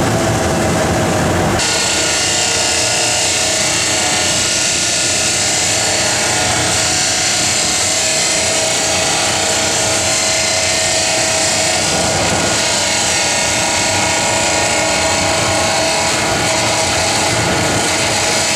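Large abrasive cut-off saw grinding through a riser on a metal casting, cutting it off: the wheel's motor hum gives way about one and a half seconds in to a loud, steady, hissing grind of the wheel in the metal.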